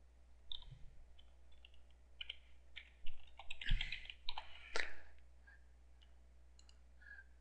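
Computer keyboard typing, a quick run of key clicks for about four seconds, followed by a few fainter clicks.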